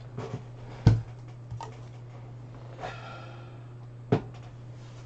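Plunger-style adjustable measuring cups being handled and set aside at a desk, giving a few scattered knocks and clunks. The loudest knock comes about a second in and another just after four seconds. A steady low hum lies underneath.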